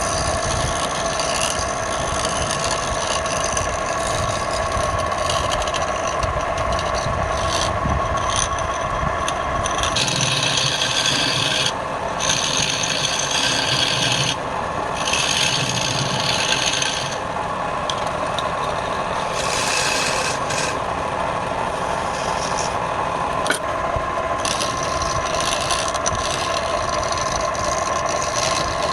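Wood lathe running with a steady motor hum, while a tool rubs against the spinning wood in long rasping passes that break off briefly every few seconds.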